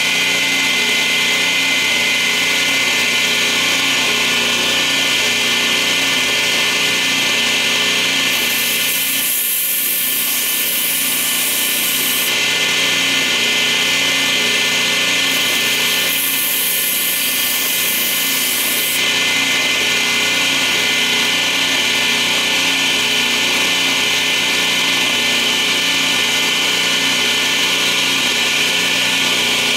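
Small electric power tool's motor running steadily, working the metal of a folding knife blade. Twice, for a few seconds each, a higher hiss rises over the motor about a third and halfway through.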